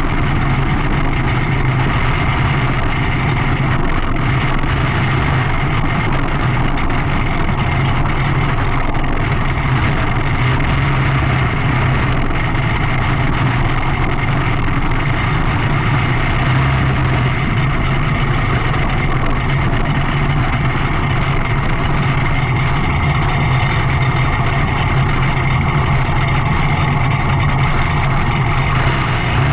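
Onboard sound of a small single-seat dirt-track race car's engine running at a steady, even pace, a loud constant drone.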